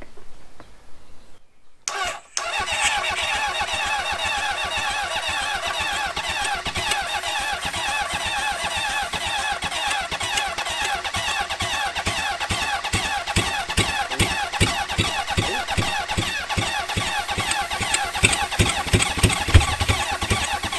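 Honda CB750 inline-four motorcycle engine starting about two seconds in and running on brake cleaner sprayed into the carburettors rather than petrol. The firing grows louder and more ragged near the end.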